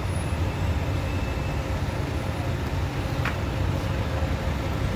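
Low, steady rumble of several vehicle engines running at idle and low speed as a line of trucks and cars creeps forward to board a car ferry.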